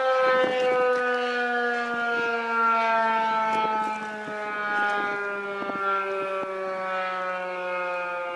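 Federal Signal 2001-130 electromechanical outdoor warning siren sounding a steady tone whose pitch slowly falls as it winds down.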